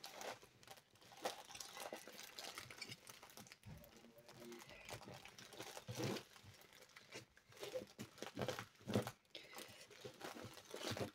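Diamond painting canvas, covered in plastic film and a paper sheet, being rolled up by hand, crinkling and rustling irregularly, a little louder about six and nine seconds in.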